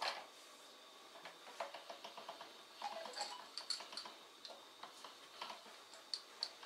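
Quiet, irregular clicks and ticks of hand dough work: a hand-cranked pasta roller being turned and a knife tapping a wooden cutting board, with a quick run of ticks about two seconds in.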